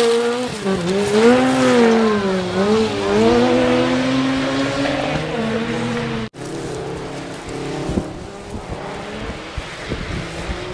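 Rally car's engine revving hard through a gravel corner, its note rising and falling again and again as the throttle comes on and off. About six seconds in the sound cuts off abruptly, leaving a quieter stretch of outdoor noise with a few faint clicks.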